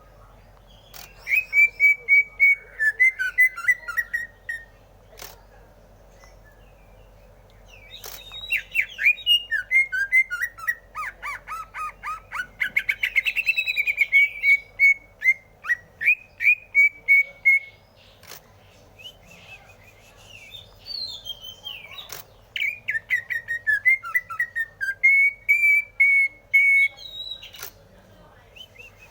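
Green leafbird (cucak hijau) singing: three long runs of quick, repeated whistled notes, some sliding up and down, with short pauses between them. A few sharp clicks fall in the pauses.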